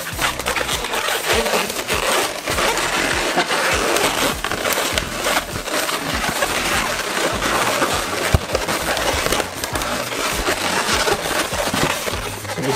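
Inflated latex modelling balloons squeaking and rubbing against each other and the hands as they are twisted into loops, a dense run of short rubbery squeaks and creaks.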